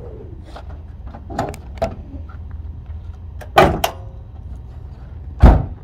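Two loud thumps about two seconds apart, the second heavier and deeper, after a couple of lighter knocks.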